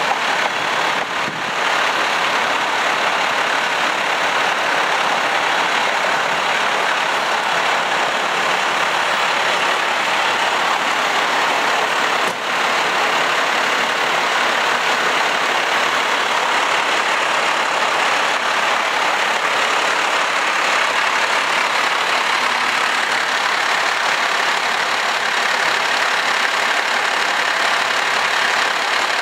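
Diesel engine of a 2011 Ferrara rear-mount aerial ladder truck idling, a steady, even noise that does not change.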